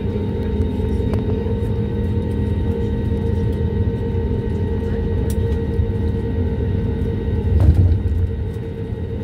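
Cabin noise inside an Airbus A320neo on the ground before takeoff: a steady low rumble with a constant engine and cabin hum, and one low thump about three-quarters of the way through.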